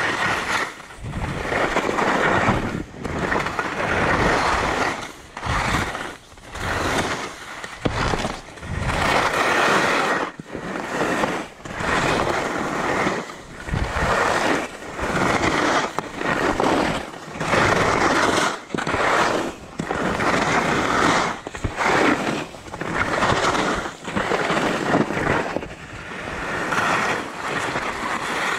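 Skis scraping across icy, hard-packed snow through a run of quick mogul turns: a burst of harsh scraping on each turn, about one a second, with brief gaps between.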